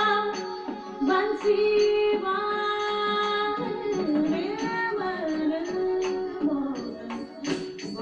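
Carnatic music for Bharatanatyam dance: a singer holds long notes with wavering ornaments over instrumental accompaniment, and sharp percussion strokes come in near the end.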